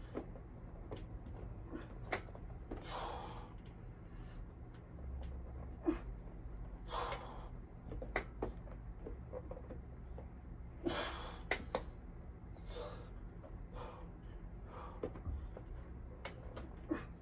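A man's hard exhales and gasps of effort as he presses dumbbells through his reps, the strongest coming about every four seconds, with small sharp clicks between them and a steady low hum underneath.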